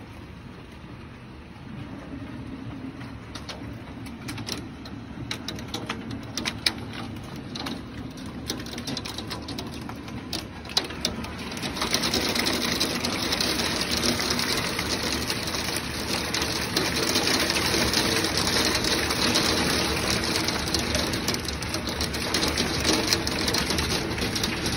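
Heavy wind-driven rain of a supercell thunderstorm pelting a wooden dock, with scattered sharp taps of drops hitting the phone in the first half. About halfway through, the downpour suddenly grows louder and denser.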